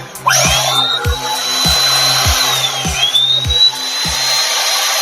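Electric router motor switched on and whining up to full speed, then dipping and spinning back up to a high steady whine about three seconds in. It is running on two freshly replaced bearings, after jammed bearings had kept it from reaching its speed. Background music with a steady beat plays underneath.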